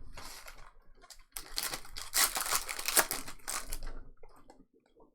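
Crinkling and rustling of a foil trading-card pack wrapper being handled, a dense crackle that starts about a second and a half in, lasts a couple of seconds, then fades to faint rustling.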